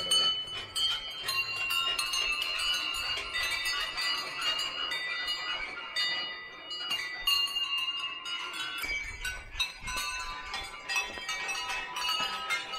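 Several hanging temple bells ringing and clanging together, with irregular strikes and overlapping ringing tones.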